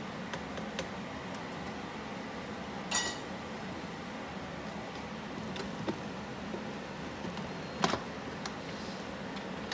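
A ladle clinks on the pot of a Ninja Foodi multicooker about three seconds in. Near the end the cooker's pressure lid is set on and shut with a sharp knock. A steady hum runs underneath.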